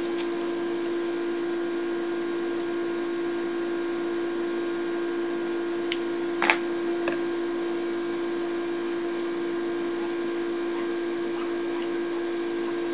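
A steady hum, one strong tone with fainter overtones above it, holding unchanged. Two light clicks come about six and seven seconds in.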